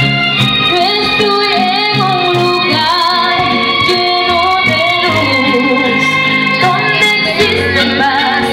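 Music: a woman sings a Spanish-language Christian song in long, gliding notes over a steady instrumental accompaniment.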